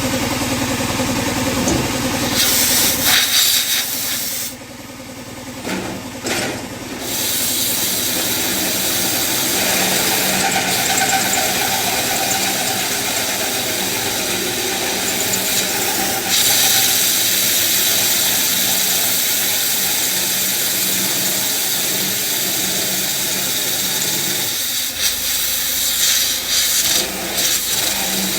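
Power drill running a 1-1/2 inch hole saw through sheet metal, with air blowing steadily over the cut to clear the chips. The noise drops briefly about five seconds in, then carries on steadily.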